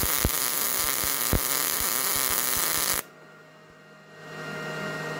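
MIG welder arc on thin sheet steel: a steady frying hiss with irregular sharp crackles for about three seconds, cutting off suddenly. A low steady hum is left after it and grows louder about a second later.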